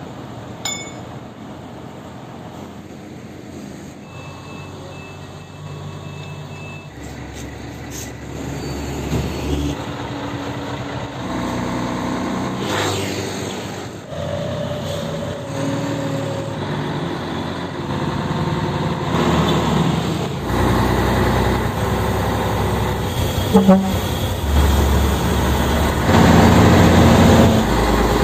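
Diesel engine of a Scania 113M 320 prime mover hauling a crawler crane on a trailer, running steadily and then pulling away under the heavy load. It grows steadily louder, and its low note steps up several times.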